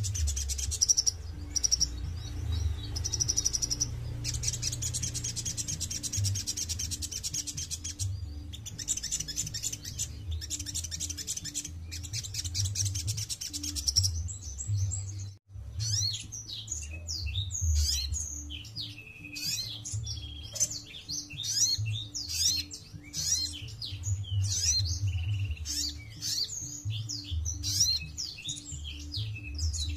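Sunbird (sogon) singing: high, rapid trills broken by short pauses, then after a brief break about halfway, a fast run of varied sharp chirps. A low hum with a faint regular pulse runs underneath.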